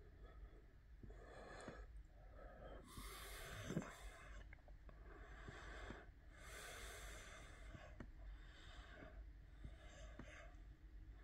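Faint breathing close to the microphone, slow breaths every three to four seconds, with a few faint clicks in between.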